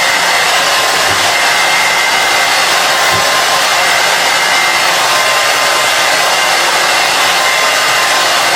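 Handheld hair dryer blowing steadily, a constant rush of air with a faint high whine, used to dry skin protectant along the hairline.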